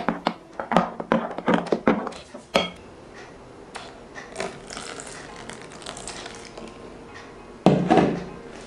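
Plastic spoon knocking and clicking against a glass bowl while a thick slime mixture is stirred: a quick run of knocks over the first two and a half seconds, then only quiet, soft sounds. A louder thump comes near the end.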